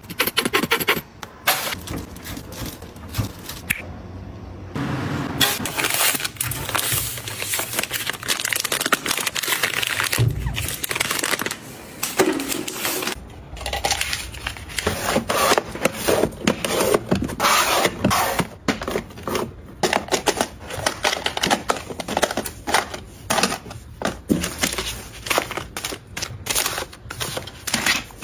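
Plastic bottles, pouches and packets of toiletries being handled and set down. There are many quick clicks and taps and stretches of crinkling plastic wrapping.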